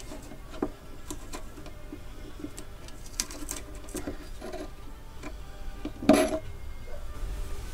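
Hand tools clicking and scraping on small metal brackets screwed into the wooden side of an old radio cabinet, as stubborn fittings are worked loose. A louder metallic clank comes about six seconds in.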